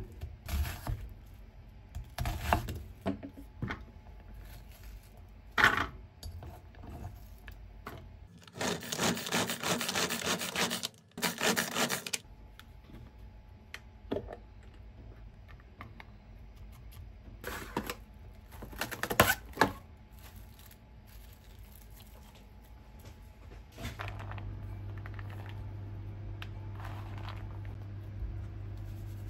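Kitchen knife chopping an onion on a wooden cutting board, a string of sharp knocks. Then a small hand-operated food chopper whirs and rattles for about four seconds as it minces the onion. A few more knocks follow, and a steady low hum sets in near the end.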